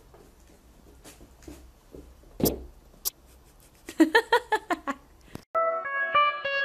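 A single loud thump of a plastic basin tipping over onto a wooden floor, followed by a click. About a second and a half later comes a quick string of short pitched cries, and music starts near the end.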